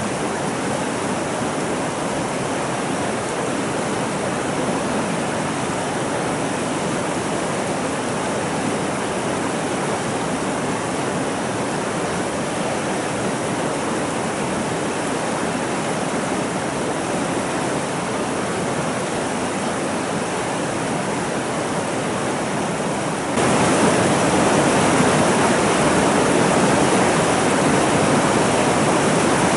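Fast-flowing river water rushing steadily past boulders. The sound steps up abruptly to a louder level about three quarters of the way through.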